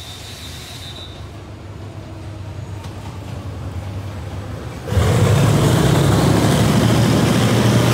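A State Railway of Thailand diesel locomotive pulling a passenger train into the station: its engine rumble grows as it approaches, then becomes suddenly much louder about five seconds in as the locomotive draws level and passes close by.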